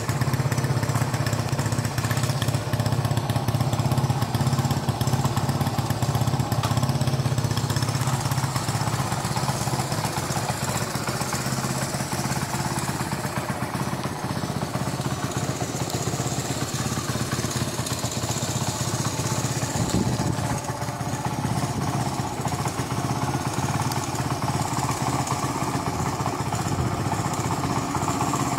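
Honda CD-70's small single-cylinder four-stroke engine idling steadily.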